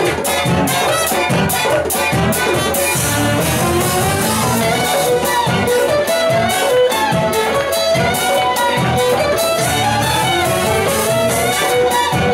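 Large folk ensemble playing a fast dance tune live: fiddles carrying the melody over strummed acoustic guitar and tuba, with a steady beat of about two strokes a second.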